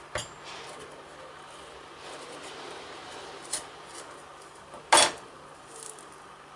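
A chef's knife slicing around the pit of an avocado on a plastic cutting board, with soft scraping and light knocks. About five seconds in there is one sharp clack of the steel knife against the board, the loudest sound.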